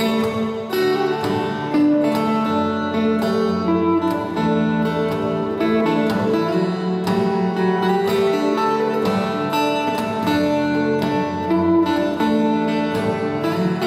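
Steel-string acoustic guitar playing an instrumental piece: picked melody notes over ringing chords, with strummed attacks every so often and no singing.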